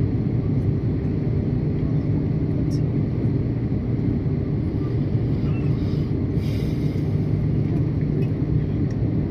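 Steady low rumble of an Airbus A330-200's jet engines and rushing airflow, heard inside the passenger cabin from a window seat behind the wing.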